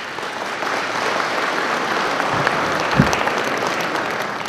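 Audience applauding steadily, building up over the first second, with a single low thump about three seconds in.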